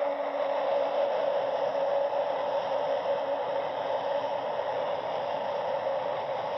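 SNCF TGV high-speed train passing through a station at speed: a steady rushing noise of wheels on rails and air.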